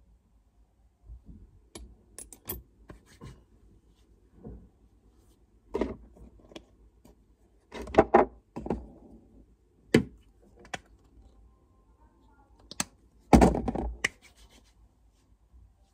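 Plastic skincare bottles and tubes being picked up and set down on a shelf: scattered clicks, taps and knocks, with a louder cluster about eight seconds in and another about two seconds before the end.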